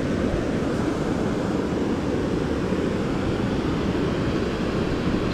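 Steady rushing noise of wind on the microphone, with no distinct events.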